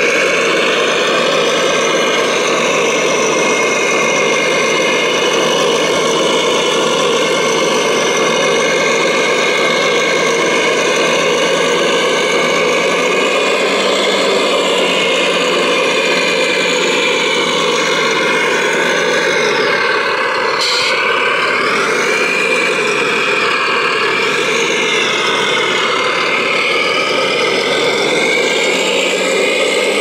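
Radio-controlled Volvo A45G articulated dump truck model running and tipping its bed, a steady engine-like drone with a motor whir. About halfway through the pitch steps up, then it rises and falls several times as the model works.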